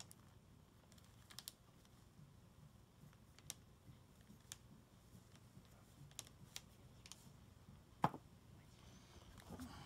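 Faint scattered clicks and taps of small massage gun parts being handled while the piston is greased, with one sharper knock about eight seconds in as a part is set down on the bench.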